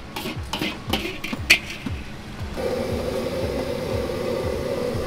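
Background music with a steady thumping beat over street-stall cooking sounds: sharp metal clinks of utensils for the first two and a half seconds, then a steady rushing noise, like a wok burner, after a sudden change.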